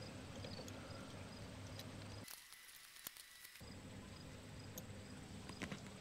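Faint outdoor background hum with a few small clicks. The sound cuts out completely for about a second and a half, a little over two seconds in.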